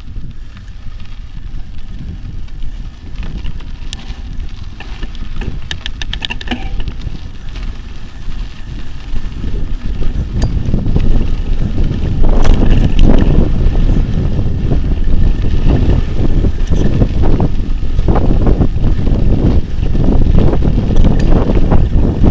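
Wind buffeting the microphone over the crunch and rumble of mountain bike tyres on a loose dirt track, with rattles and knocks of the bike and camera over bumps. It gets louder from about halfway through.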